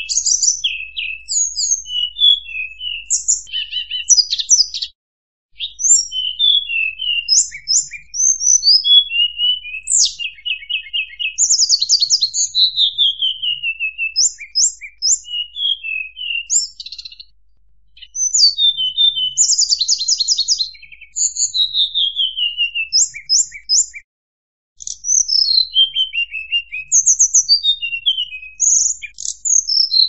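Murai buluh, a blue flycatcher, singing: a long run of quick, high, varied phrases with fast trills and falling slurred notes, broken by a few short pauses.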